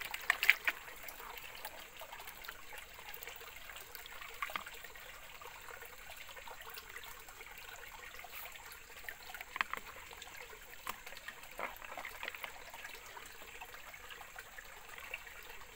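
Water sloshing and trickling in a plastic gold pan as it is dipped and swirled in a shallow creek to wash out the sediment, with a few sharper splashes, the loudest near the start.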